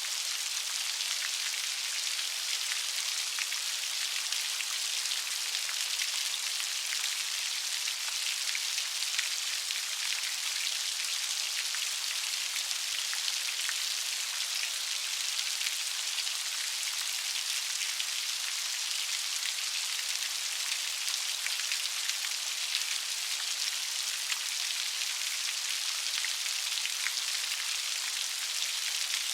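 Steady light rain pattering on a surface, a continuous hiss with many small drop ticks.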